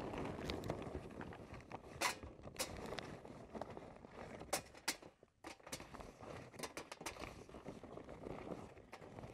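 Charcoal briquettes dropped by hand into a metal chimney starter, each landing as a short sharp clack at irregular intervals, over the rustle of the paper charcoal bag.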